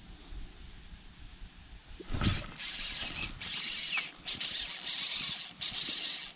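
Spinning fishing reel whirring, with a high, steady whine. It starts about two seconds in after a thump and breaks off briefly a few times.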